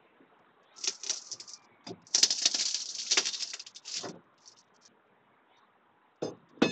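Crackling and rattling as rotted floor debris is pulled loose and handled by hand, in two spells, the second about two seconds long. Two short knocks follow near the end.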